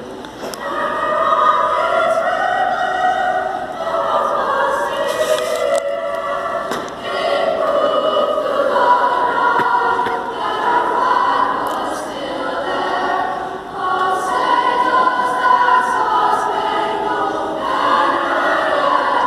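A middle school choir singing the national anthem in long, held lines.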